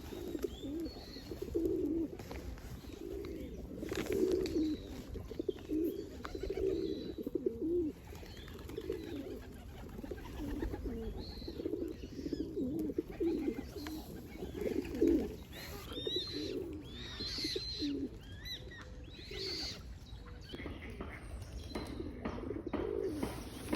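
Pigeons cooing in a steady run of low repeated phrases. Higher chirps of small birds come in over them in the second half.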